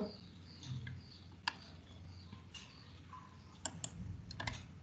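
Faint scattered computer clicks: one sharp click about a second and a half in, then a small cluster of quick clicks near the end, over a faint low hum of the call line.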